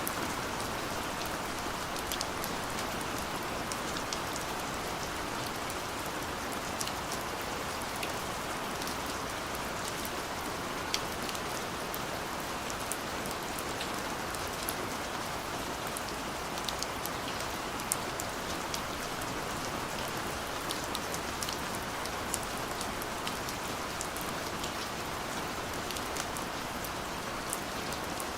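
Steady rain falling, an even hiss with many small, sharp drop clicks scattered through it.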